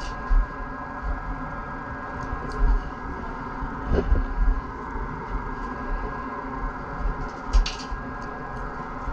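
A plastic squeegee spreading wet resin over the fibreglass bottom of a surfboard, with a few soft scrapes, over a steady mechanical hum and low bumps from handling.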